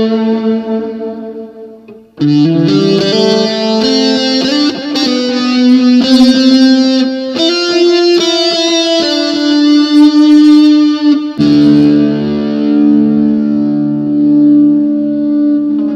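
Electric guitar played through a Waldman Super Chorus Ensemble chorus pedal. A phrase fades out about two seconds in, then a run of picked notes and chords follows, and a held chord rings out near the end.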